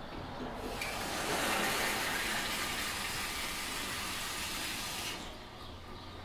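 Water running from a shampoo-sink faucet over hands being rinsed. It is turned on about half a second in and shut off about five seconds in.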